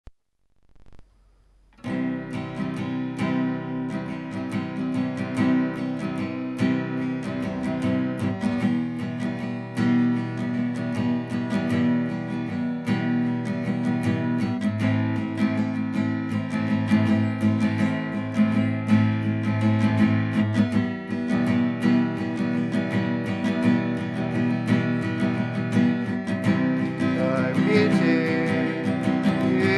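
Acoustic guitar strummed in a steady rhythm, starting about two seconds in after a short silence: the opening of a song.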